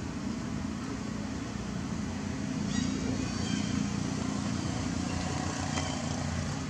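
Steady low rumble of running motor traffic, with a few faint, short, high chirps about three and six seconds in.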